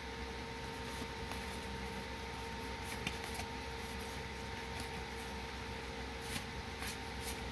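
Foil Magic: The Gathering cards being slid and flicked through by hand: a few short, crisp swishes of card against card, one about three seconds in and several close together near the end, over a steady hum.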